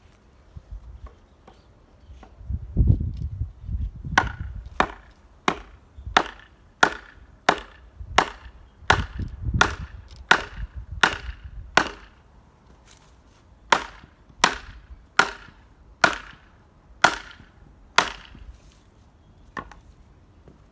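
Axe chopping firewood in a quick, steady series of sharp strikes, about three every two seconds, starting a few seconds in and stopping near the end. Low rumbles come near the start and again in the middle.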